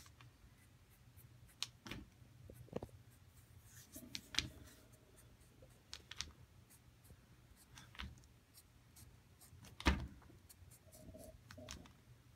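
Sharpie marker tip tapping on construction paper on a wooden desk, dotting a line along a fold. The taps are light and irregular, roughly one a second, and the loudest comes about ten seconds in.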